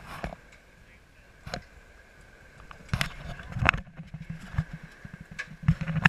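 Lifted SUV crawling over rocks, its engine running low and uneven, with several sharp knocks and clunks as the tires and underbody meet the rock, the loudest about halfway through and again near the end.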